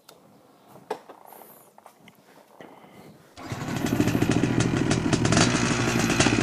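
Yamaha M-Slaz's 150cc single-cylinder engine starting up about halfway through after a few small clicks, then running steadily and a little louder toward the end.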